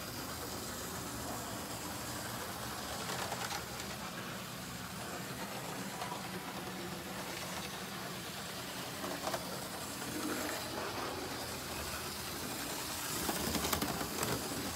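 00 gauge model electric locomotive running slowly along the track: a low steady hum from its small motor, with a few faint clicks.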